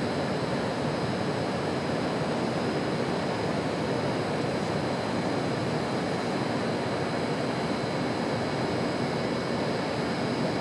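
Steady industrial din of a car assembly plant: a constant, even rush of machinery and air noise with a faint high whine above it.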